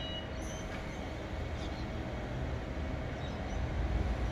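Outdoor ambience at a railway platform: a steady low rumble that swells in the last second or so, with a faint steady hum and a few faint bird chirps.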